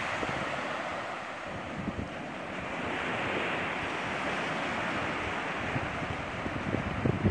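Surf washing on a sandy beach, a steady rush that swells and eases slowly, with gusts of wind buffeting the microphone near the end.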